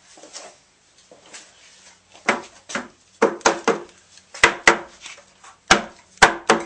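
Hammer knocks on a wooden whiskey barrel: a run of sharp, irregularly spaced blows, starting about two seconds in.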